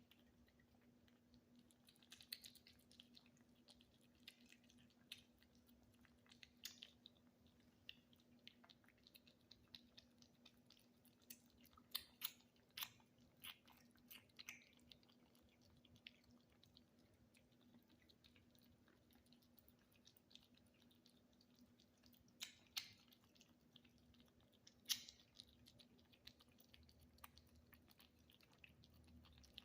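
Kittens eating wet tuna: faint, irregular wet smacking and chewing clicks, a few louder smacks among them.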